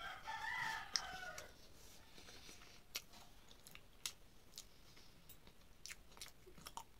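Soft mouth sounds of someone chewing a mouthful of rice and curry eaten by hand, with scattered small clicks and smacks. A brief pitched call is heard in the first second and a half.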